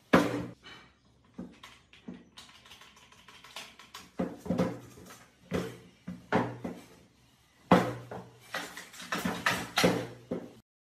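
An old Stihl chainsaw being handled and set down on a wooden table: a string of knocks and clatters of its housing and bar against the wood, the loudest right at the start and again about eight seconds in.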